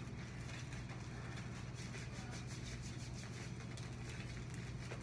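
Faint sticky clicks and squelches of homemade slime being kneaded and stretched by hand, over a steady low room hum.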